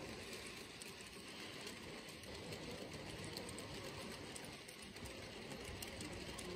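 Model railway goods train of coal wagons rolling along the track, its small metal wheels giving a steady running noise with faint irregular clicks.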